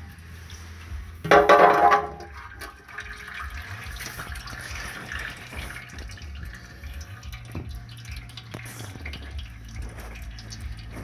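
Automatic transmission fluid pouring and dripping from the loosened transmission pan into a drain pan. A brief loud mechanical whir comes about a second in.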